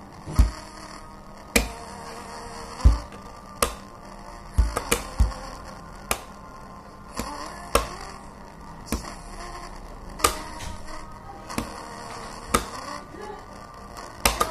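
Plastic pens tapped and struck on a wooden tabletop in a pen-tapping rhythm: sharp clicks mixed with deeper knocks, about one or two a second in an uneven pattern.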